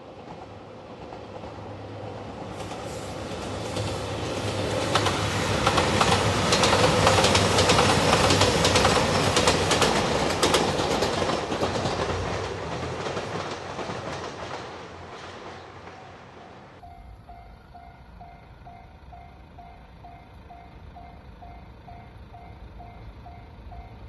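JR Shikoku 2700 series diesel express train approaching and passing, its engine and wheel noise swelling to a peak about a quarter of the way through and then fading away. After a cut, a Japanese level-crossing bell dings at a steady rapid beat.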